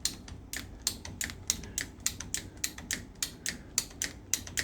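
A hand ratchet clicking steadily, about four to five sharp clicks a second.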